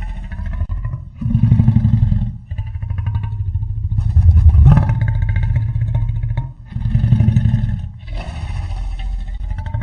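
Custom designed Vastatosaurus rex roars: a string of deep, rumbling roars and growls, each a second or two long, with a wavering whine above the rumble. The loudest starts suddenly about halfway through.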